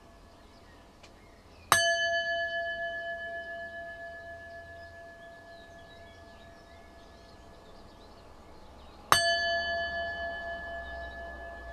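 A metal bell struck twice, about seven seconds apart; each strike rings on with several steady tones that fade slowly.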